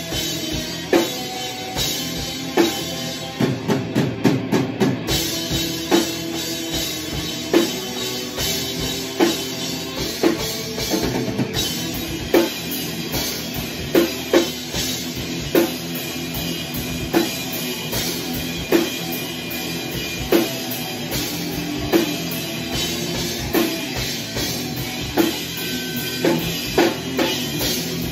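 A live rock band playing an instrumental metal song with no vocals: a drum kit keeps a steady, hard-hit beat under electric guitars and a bass guitar. About four seconds in there is a quick flurry of drum hits.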